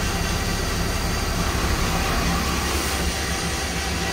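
Okuma MB-5000H horizontal machining center running while its spindle head traverses toward the front of the work area: a steady mechanical hum with a low drone and a thin high whine.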